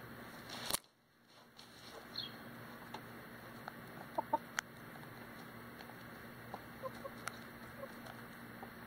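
Chickens foraging in dirt right by the microphone: scattered sharp ticks of beaks pecking the ground, with a few soft clucks. A brief loud scuffing close to the microphone comes under a second in.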